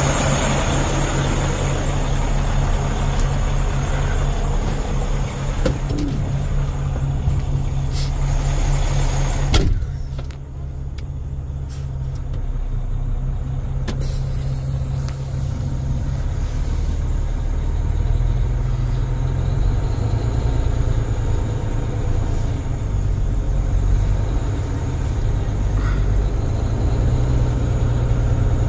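Caterpillar C13 inline-six diesel of a Sterling L9500 dump truck idling steadily. About ten seconds in, a cab door shuts with a sharp knock, and from then on the idle is heard duller from inside the cab, with a few light clicks before the door.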